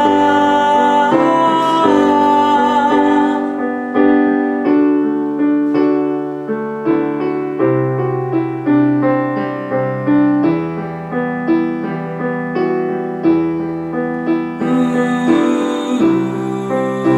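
Piano playing a slow accompaniment of struck notes and chords. A held sung note with vibrato runs over it at first and stops about three and a half seconds in, leaving the piano alone.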